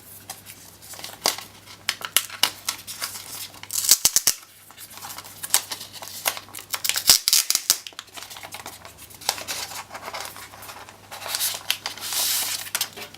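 Protective plastic wrap being peeled off a trackpad: a long run of irregular crackles and crinkles, loudest in bursts about four, seven and twelve seconds in.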